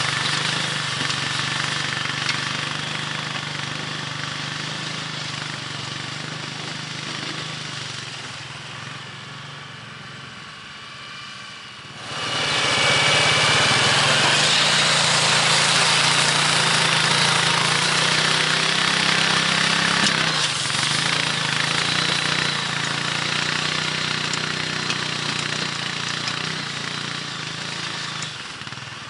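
ATV engine running steadily under load while pulling a single-furrow plow through the field, growing fainter over the first dozen seconds, then abruptly much louder about twelve seconds in before slowly fading again.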